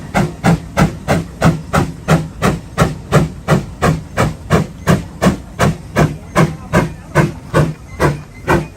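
Case 150 steam traction engine working, its exhaust chuffing in an even beat of about three puffs a second, slowing slightly near the end.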